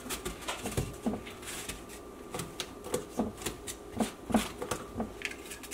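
Shaved ice being tipped from a metal hand ice shaver into a metal cone mold and pressed down by hand: a quick, irregular series of soft crunches and taps.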